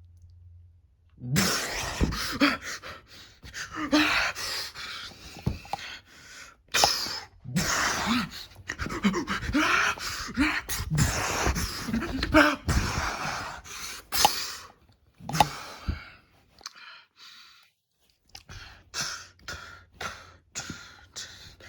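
A person breathing hard in heavy, ragged breaths with gasps and short strained vocal sounds. The breathing stops for a moment about three quarters of the way through, then comes back more faintly.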